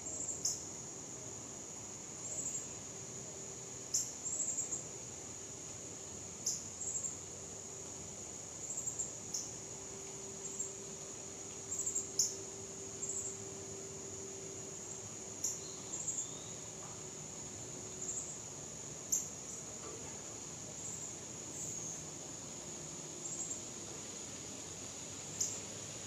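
Outdoor nature ambience: a steady, high-pitched insect drone, with short, sharp, high chip notes every one to three seconds that are the loudest sounds.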